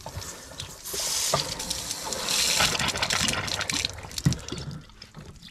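Water gushing out of a travel trailer's hot and cold low-point drain lines as they are opened, splashing onto concrete, with a few knocks from the fittings being handled. The flow builds about a second in and dies down near the end. This is the plumbing being drained for winterizing.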